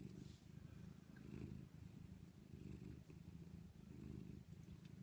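Domestic cat purring softly, a low rumble that swells and fades in a slow, even rhythm with each breath in and out.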